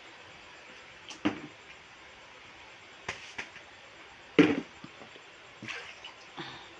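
Plastic basins and a pot knocking and clattering as they are handled and set down: a handful of separate sharp knocks, the loudest about halfway through.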